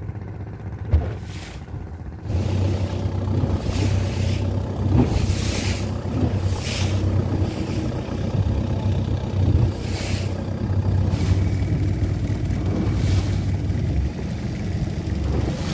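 Small fishing boat's engine running as the boat travels, getting louder about two seconds in as it picks up speed. Wind gusts on the microphone several times.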